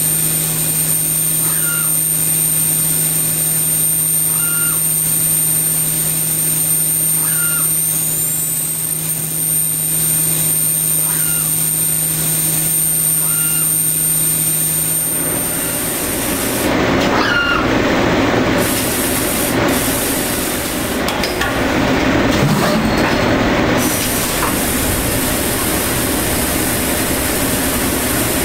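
Leadwell V-20iT CNC machining centre working a brass part: a steady hum with a high whine and a faint chirp every couple of seconds, which changes about halfway through to a steady spraying hiss, with a few knocks and bumps soon after.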